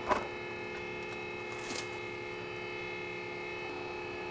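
Steady machine hum made of several unchanging pitches, with a brief faint scrape about a second and a half in.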